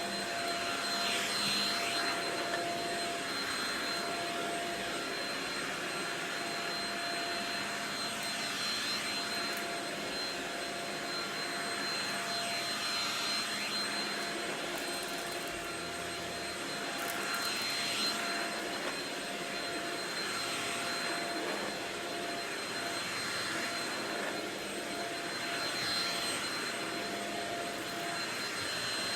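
Shark Rocket stick vacuum running with a steady motor whine, its pitch dipping and coming back up every few seconds.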